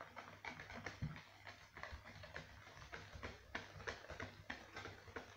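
Wire whisk beating cake batter in a plastic bowl: quick, irregular clicking and tapping of the wires against the bowl, starting abruptly.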